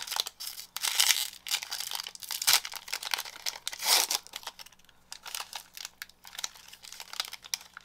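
Trading-card pack wrapper being torn open and crinkled, an irregular crackling and rustling that is busiest for the first four seconds or so, then fainter.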